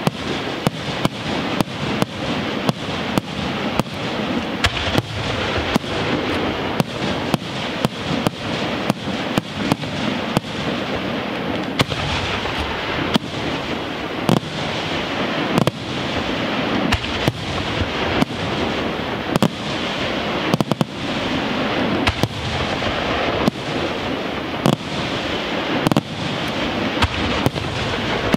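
Aerial fireworks display: shells bursting one after another, sharp reports about two a second over a continuous rumble and crackle.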